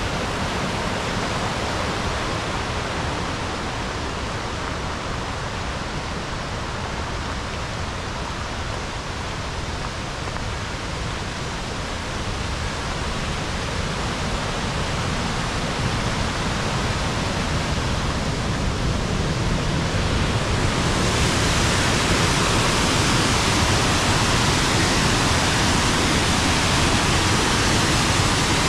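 Waterfall rushing in a steady roar that grows louder and hissier about three-quarters of the way through.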